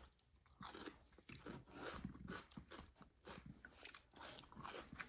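Faint mouth sounds of someone eating close to the microphone: irregular chewing and crunching bites.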